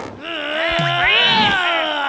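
A cartoon character's long, drawn-out vocal cry that slides slowly down in pitch, with a couple of short low knocks under it about three quarters of a second in.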